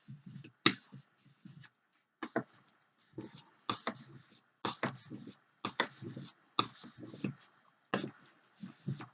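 Kitchen knife blade drawn across the 8000-grit side of a wet whetstone, short scraping strokes repeated roughly once a second.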